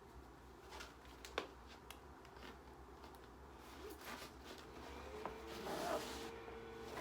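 Faint handling noise of parts being fitted together: scattered small clicks, one sharp click about a second and a half in, and a louder rustle near the end.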